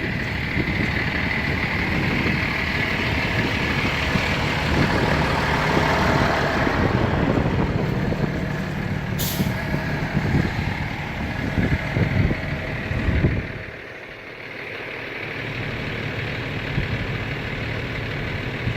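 Vacuum truck running steadily, with one short high hiss about nine seconds in. The sound drops sharply about thirteen and a half seconds in, then carries on lower.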